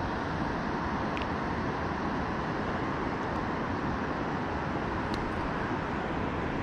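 Steady rushing of water at a dam spillway, with a couple of faint clicks.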